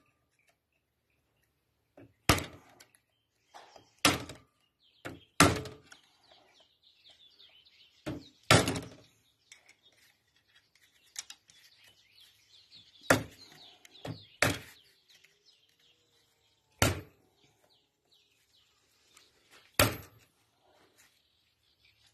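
Sharp metallic clicks and taps of a screwdriver and pliers working a retaining clip onto the Bendix drive shaft of a Paris-Rhône starter motor. About eight separate clicks, one to four seconds apart, with quiet fiddling between.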